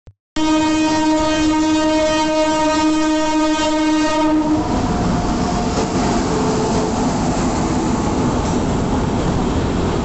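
WAP-7 electric locomotive sounding its horn in one long steady blast for about four seconds, then the rumble of the locomotive and its coaches rolling past along the platform.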